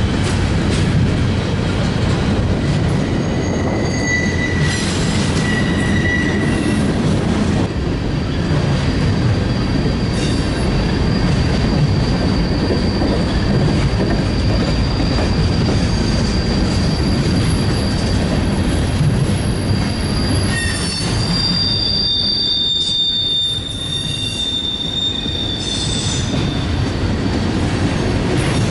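Freight cars rolling past on the rails, a steady rumble of wheels on track with high squeals from the wheels coming and going. A long, even squeal holds through the middle, and another comes in near the end.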